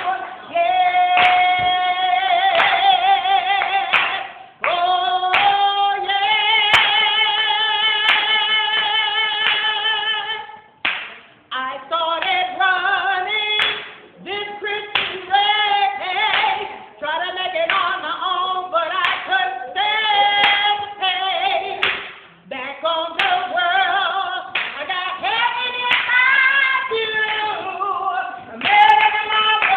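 A voice singing a song in long phrases of held notes with a wavering vibrato, with people clapping along.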